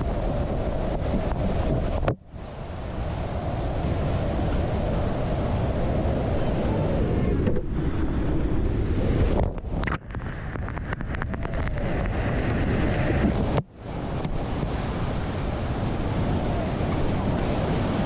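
Loud, steady rush of a flooded waterfall and whitewater rapids heard from right on the water in a kayak, with wind buffeting the camera microphone. The sound cuts out sharply and briefly three times, about two seconds in, midway and about three-quarters through. Around the middle it turns muffled for a couple of seconds as the kayak lands in the foam and spray washes over the camera.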